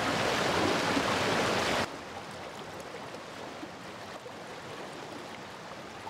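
River water rushing under an edge of ice: loud for the first two seconds, then cutting off sharply to a quieter, steady rush of the river.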